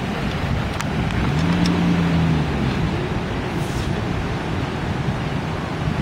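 Rushing river water with wind buffeting the microphone. A brief low hum rises and falls about a second and a half in.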